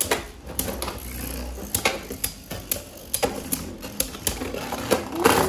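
Beyblade Burst spinning tops clashing and clattering against each other and the walls of a clear plastic stadium: irregular sharp clacks several times a second, the loudest one near the end.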